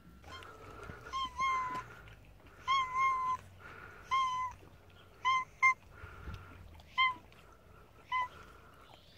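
Black-and-white cat meowing over and over, about nine short, level-pitched meows roughly once a second, some in quick pairs, starting about a second in.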